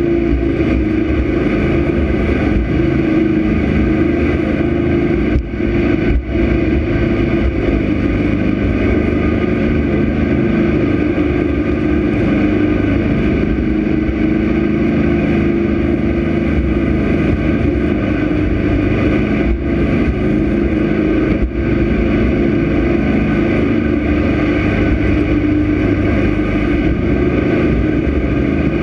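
Jet boat's engine running steadily at speed, a constant drone over rushing water and air, dipping briefly a few times.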